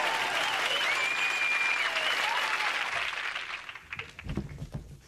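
Studio audience applauding and cheering, with a whistle about a second in. The applause fades out after about three seconds.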